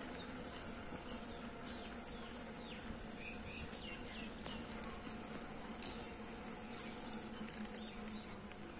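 Quiet outdoor ambience: a few short bird chirps over a steady faint hum and a thin high buzz, with one sharp click about six seconds in.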